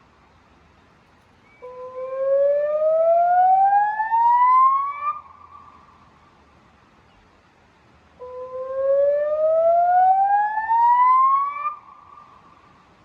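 Electronic river warning siren playing a rising tone through Bosch LBC-3406 PA loudspeakers, sounding a warning activation. Two sweeps, each climbing steadily for about three and a half seconds and then cutting off, with a short echo trailing after each and a pause of about three seconds between them.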